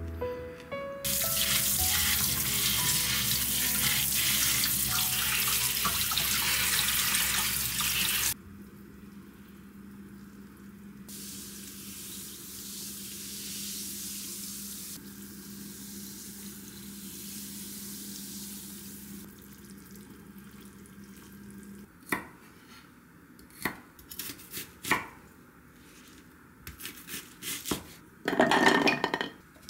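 Water running hard into a stainless-steel tray of beef ribs in a sink, then a softer fizzing hiss as clear lemon-lime soda is poured over the ribs to draw out the blood. Near the end come sharp clicks and knocks of a plastic food-chopper bowl being handled.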